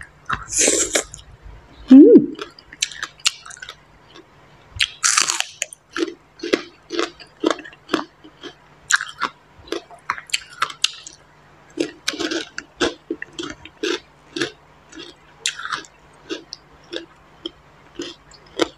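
Close-miked eating of som tam (spicy papaya salad): two louder crunchy bites, one near the start and one about five seconds in, then steady wet chewing with short smacks about twice a second.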